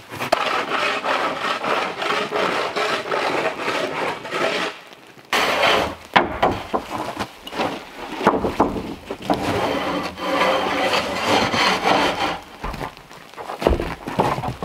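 Long wooden pole scraping and rubbing in repeated strokes against the snowy roof edge, with small knocks and a short pause about five seconds in.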